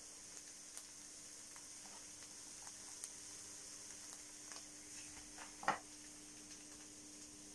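Fish, sweet corn and rice frying quietly in a pan: faint sizzling with scattered small crackles, and one louder click near the end, over a faint steady hum.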